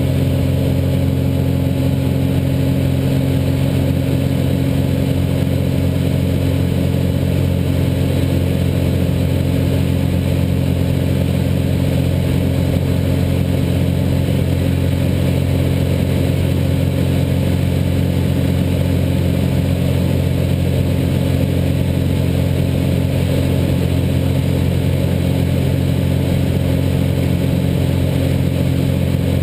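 Cessna light aircraft's piston engine and propeller droning steadily, heard inside the cabin in flight.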